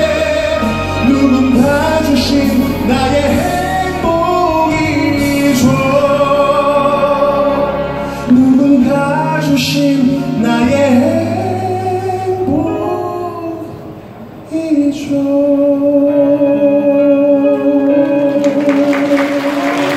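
A man singing a slow Korean ballad into a microphone over a sustained accompaniment, ending the song on one long held note for about the last five seconds.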